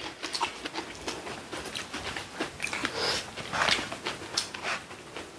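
Eating sounds: chewing, with scattered small clicks and taps and a brief louder crunchy burst a little past halfway.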